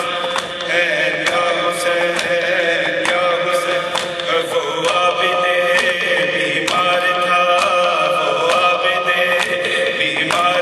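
Urdu noha, a Shia lament, chanted by men with sustained melodic lines. Sharp beats keep a steady rhythm under it, about three every two seconds.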